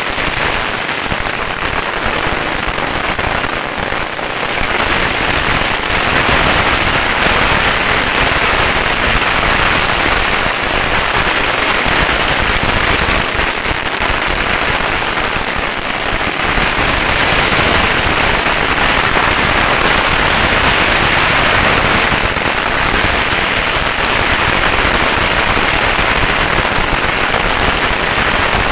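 Dense, unbroken barrage of firecrackers, a continuous rattle of countless small bangs that grows louder about four seconds in.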